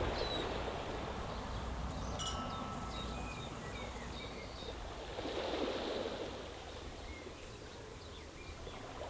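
Small waves washing over a stony beach, surging around the start and again about five and a half seconds in. Short high bird chirps are scattered throughout.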